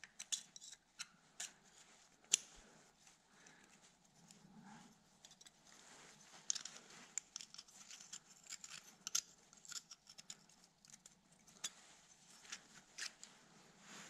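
Faint, scattered metallic clicks and short scrapes of a thin pick prying a piston ring out of its groove and off a 125 cc pit bike piston. The ring had been stuck in its groove.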